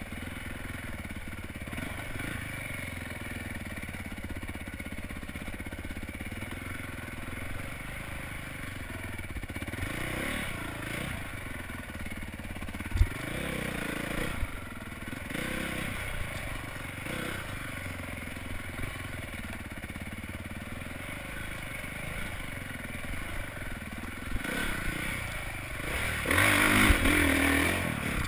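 Honda dirt bike engine running at varying revs, rising and falling as the bike works along a rough trail, heard from the rider's helmet. A sharp knock comes about halfway through, and the engine gets louder near the end.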